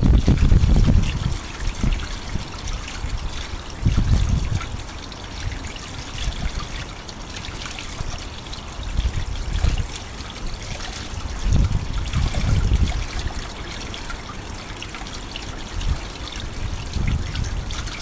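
Wind buffeting the microphone in gusts: low surges every few seconds over a steady hiss.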